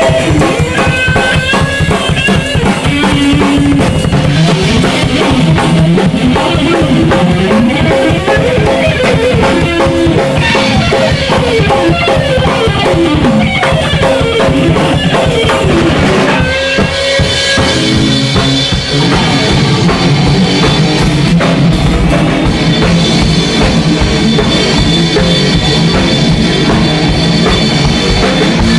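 Rock band playing a song at full volume: a drum kit with kick and snare driving a steady beat under bass and electric guitar, with sliding pitched lines. About halfway through the music drops back briefly, then comes in fuller.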